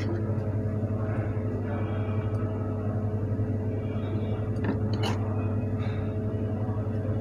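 Steady low background hum with a faint constant tone, and two light taps of a steel spoon on the dish about five seconds in.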